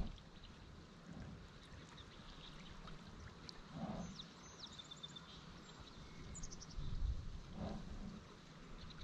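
Soft water swishes from a canoe paddle, a few slow strokes, over the low steady rush of a small river.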